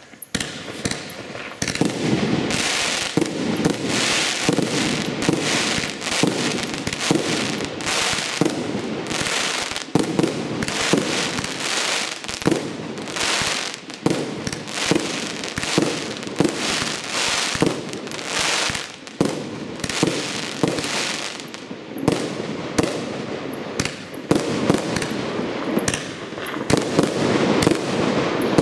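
100-shot 30 mm firework cake (Pyro-Kaskad PKU356) firing in rapid succession, launch thumps and shell bursts overlapping several times a second with crackling stars.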